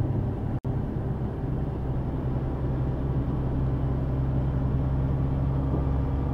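Steady road noise and engine drone of a vehicle cruising on a highway, heard from inside the cab, with a brief dropout in the audio about half a second in.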